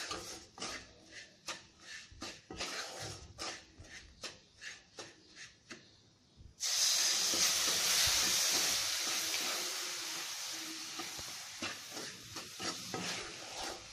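A wooden spatula scraping and stirring dry rava and sugar in a nonstick kadai, in quick strokes two or three a second. About halfway through, warm milk hits the hot ghee-roasted mixture and it sizzles with a sudden loud hiss that fades slowly while the stirring goes on.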